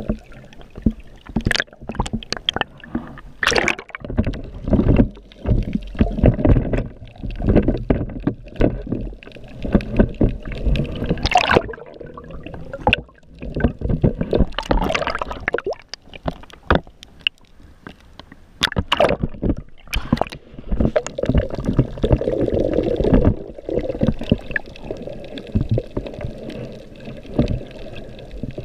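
Muffled water sloshing and gurgling around an action camera in its waterproof housing, carried underwater while a snorkeler swims with fins. It comes in uneven surges, with scattered sharp clicks and crackles.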